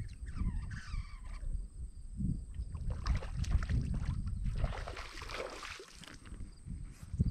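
Water splashing and swirling in shallow weedy pond water as a released largemouth bass swims off, loudest about three to five seconds in.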